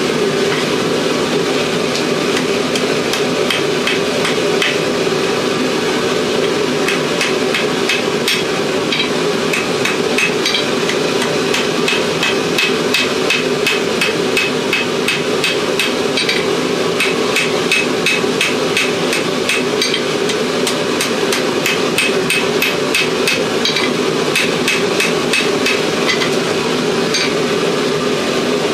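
Forging hammer striking a steel file blank on an anvil: a long run of sharp, ringing blows at about two to three a second, with short pauses, over a loud steady roar underneath.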